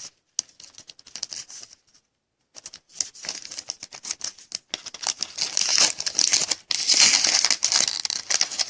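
Foil wrapper of a 2016 Panini Phoenix football card pack crinkling and tearing as the pack is opened and the cards handled, a dense run of rustles. There is a brief pause about two seconds in, and the rustling is loudest in the second half.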